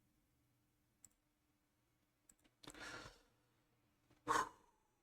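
A few faint clicks over a low steady hum, with a heavy sigh about halfway through and a short breathy sound near the end, the sounds of frustration.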